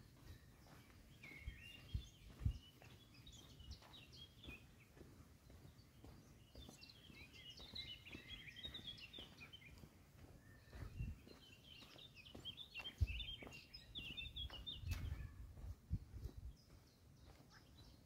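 Faint songbird chirping in three spells of quick, twittering notes, with soft low thumps of footsteps on a forest path.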